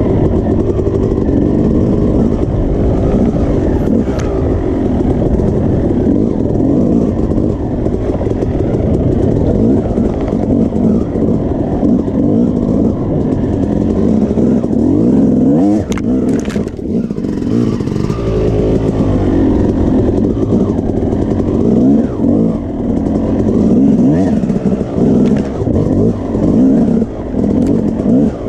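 Yamaha YZ250 two-stroke dirt bike engine heard on board while riding a trail, revving up and falling back over and over as the rider works the throttle and gears. About 16 seconds in there is a brief knock or clatter, and the engine note dips for a moment.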